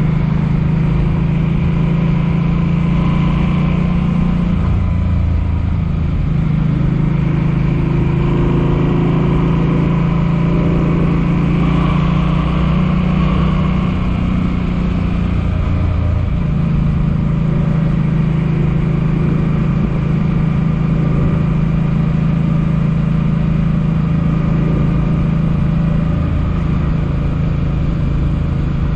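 Suzuki Boulevard M50's V-twin engine running steadily as the motorcycle is ridden. The engine note drops lower twice, about five and fifteen seconds in, then settles back.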